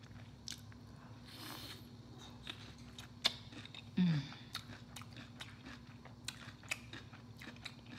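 Crunchy bites and chewing of a raw mini sweet pepper, with scattered crisp clicks, the sharpest about three seconds in. A short falling "mm" hum of the voice comes about four seconds in.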